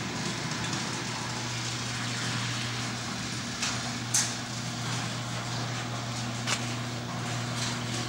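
Electric garage door opener running as a sectional garage door rolls up: a steady motor hum with the rumble of the door moving, and a few sharp clicks along the way.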